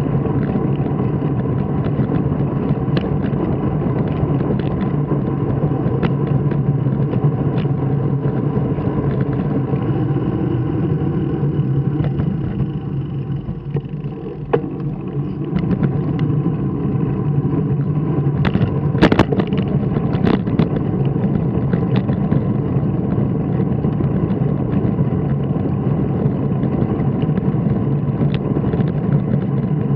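The engine of the vehicle carrying the camera, running steadily as it drives along, easing off briefly about halfway through while it slows at an intersection. A few sharp clicks come about two-thirds of the way in.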